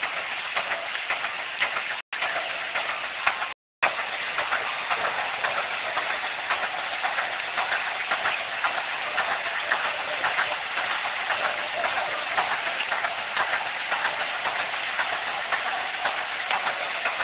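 Steam fire pump running steadily: a dense, fast clatter over a hiss. The sound cuts out briefly twice near the start.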